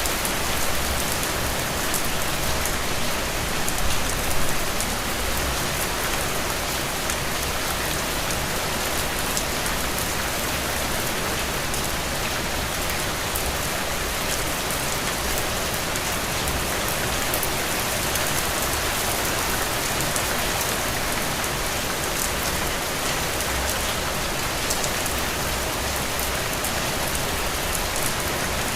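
Steady heavy rain falling on a surface, a dense even hiss with close-spaced drops pattering.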